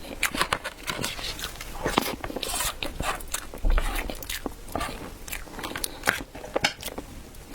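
Close-miked biting and chewing of chilled bread, with many sharp, crackly crunches.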